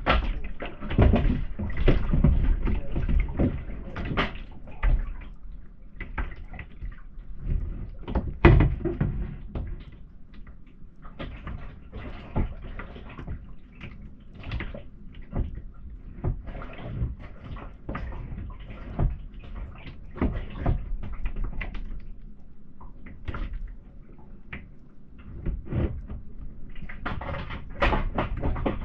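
Sea kayak being paddled: irregular splashes and knocks of the paddles and the water against the hull, over a low rumble.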